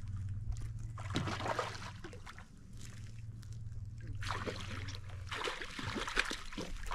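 A hooked trout splashing and thrashing at the water surface as it is reeled toward the bank, in a burst about a second in and again for a couple of seconds from about four seconds in.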